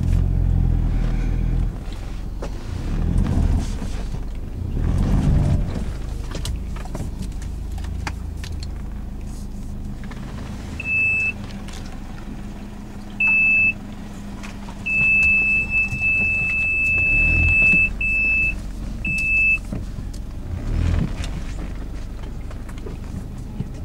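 Toyota Land Cruiser Prado 120's engine running, heard from inside the cabin while it drives through sand, swelling with throttle a few times in the first six seconds. Midway, a high electronic beep from the car sounds several times: short beeps, one long tone of about three seconds, then two more short beeps.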